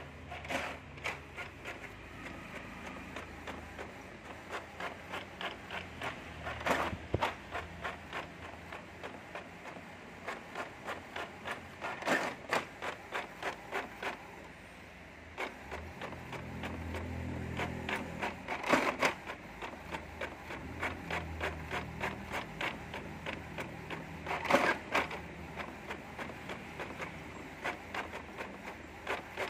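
Epson inkjet printer printing: the print-head carriage shuttles back and forth and the paper feed steps, making a steady run of quick, regular clicks. Louder rattling bursts come every several seconds.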